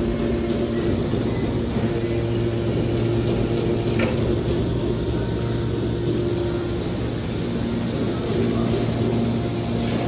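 Hydraulic power unit of a scrap metal baler (electric motor and pump) running with a steady low hum, while the ejection cylinder pushes a compressed bale of metal turnings out of the chamber. A brief click about four seconds in.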